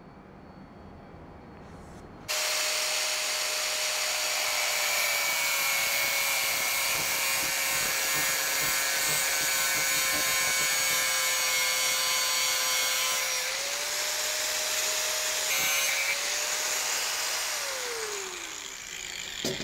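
Small angle grinder with a cut-off disc starting about two seconds in and cutting through 6 mm steel bolts, its motor running at a steady pitch. Near the end it is switched off and its pitch falls as it winds down.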